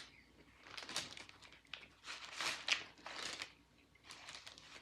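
Paper sandwich wrapper crinkling in several short bursts as it is handled.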